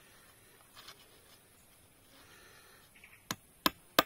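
Quiet background for about three seconds, then sharp chops into wood start near the end: three quick strokes about a third of a second apart.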